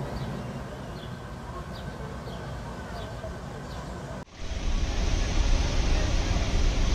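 Outdoor street background noise with faint short high chirps repeating every half second or so. It cuts off abruptly about four seconds in to a much louder, steady low rumble and hiss.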